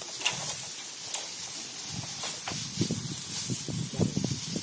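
Dry straw rustling and crackling as hands work through it, tying it into a thatch panel, with a few sharp crackles.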